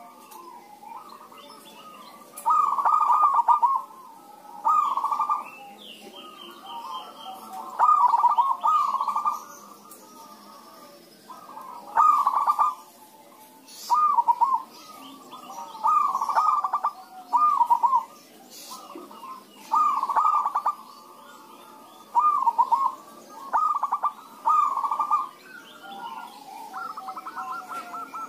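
Several zebra doves (perkutut) cooing and answering one another. Each call is a short phrase of rapid coo notes. A louder bird calls every two to three seconds, over quieter coos from others.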